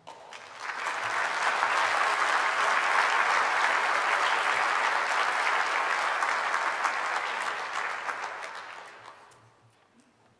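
Audience applauding, swelling over the first two seconds, holding steady, then dying away about nine seconds in.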